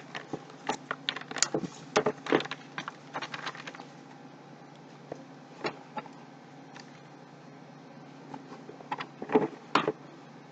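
Motherboard packaging being handled: the anti-static bag crinkling and the cardboard box knocking, in a quick flurry of crackles and clicks over the first few seconds, then only scattered ones, with two louder knocks near the end.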